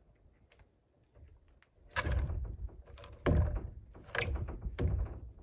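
A log being worked loose from a log cabin wall: four heavy wooden thuds and knocks, starting about two seconds in.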